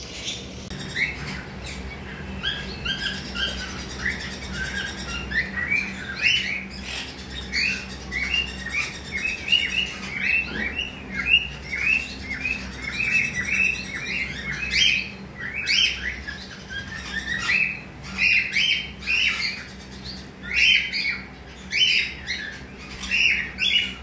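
Pet parrots chirping, a quick string of short, high chirps about two a second, over a faint steady hum.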